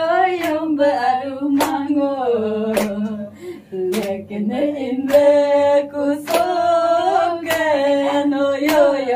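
Women singing a song unaccompanied, holding long notes and clapping their hands in time, about one clap every second and a bit.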